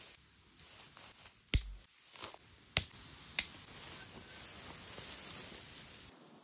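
Soft rustling broken by three sharp snaps, the first about a second and a half in with a dull thump under it, the other two over the next two seconds.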